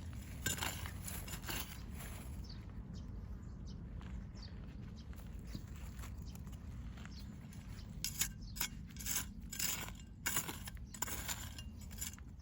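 Scraping and clinking of a digging tool working through soil while potatoes are dug up, in short bursts near the start and again toward the end, over a steady low rumble.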